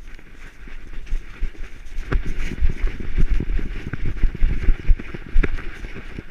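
A dog running over dry fallen leaves, heard from a camera harnessed to its back: rapid thumps of its paws and of the jostling mount, with rustling and crunching leaves. It grows louder about two seconds in.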